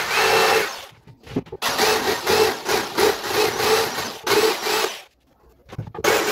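Electric jigsaw cutting a slot through the wooden top panel of a speaker cabinet, its motor and blade running in three runs with two short pauses.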